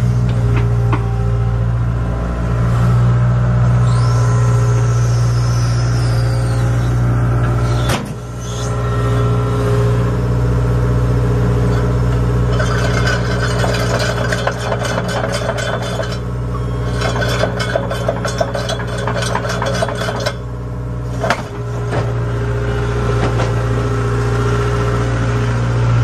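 Tracked hydraulic excavator's diesel engine running steadily. About halfway through, its steel crawler tracks give two stretches of fast, rattling clatter, each a few seconds long.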